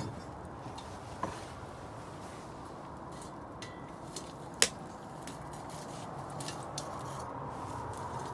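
Wood bonfire burning: a steady low rush with scattered crackles and pops, the sharpest about four and a half seconds in.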